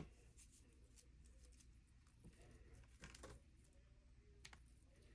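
Near silence: room tone with a faint low hum and a few soft handling clicks and rustles, around three seconds in and again a second or so later.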